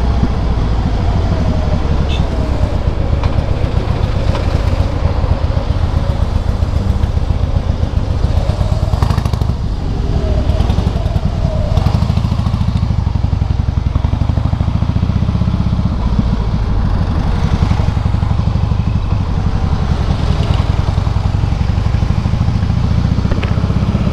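Harley-Davidson Softail Heritage V-twin running steadily through loud Screamin' Eagle exhausts while under way, a dense low exhaust rumble.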